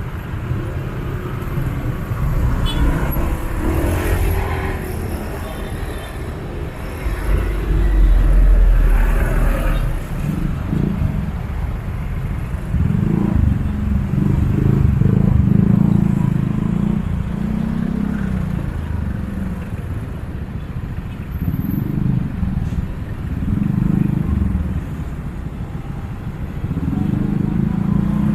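Busy city street traffic: cars and motorcycles passing close by, their engines rumbling in swells that rise and fall every few seconds.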